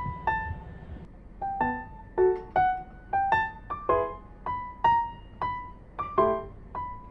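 Background music: a gentle piano melody of single struck notes, about two a second, with a few fuller chords.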